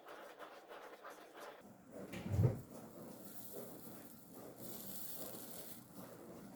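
Quiet handling sounds at a soldering bench: a single dull knock about two seconds in, then a soft hiss lasting about a second a little past halfway.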